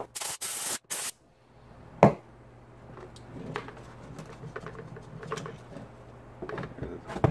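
Two short blasts of compressed air from a blow gun in the first second, each cutting off sharply. About two seconds in comes a single sharp knock, followed by light clicks and clatter as the plastic vacuum motor housing is handled on the workbench.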